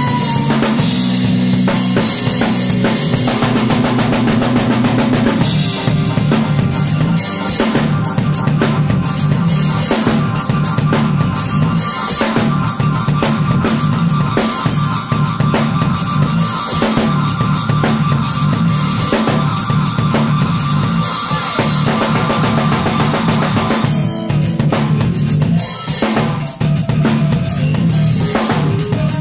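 Live instrumental band playing: a busy drum kit with kick, snare and cymbals over a loud electric bass line. A held higher tone sits above them from about ten seconds in until near the end.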